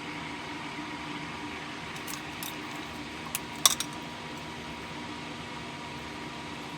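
A few light metallic clicks and taps from small metal parts or tools being handled on a workbench, the loudest a little past halfway, over a steady hum of a fan or air conditioner.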